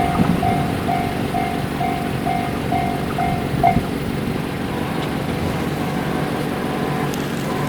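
Japanese railroad crossing's electronic warning bell ringing "kan-kan" about twice a second, over a low steady rumble, and stopping a little under four seconds in, just after a train has passed the crossing.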